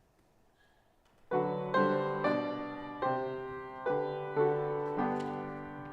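Piano playing a hymn introduction: a run of chords, each struck and then fading, starting after about a second of near silence.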